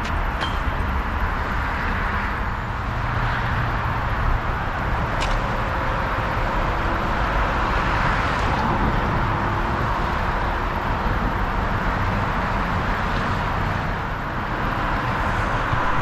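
Steady road-vehicle noise: a continuous low rumble with an even hiss.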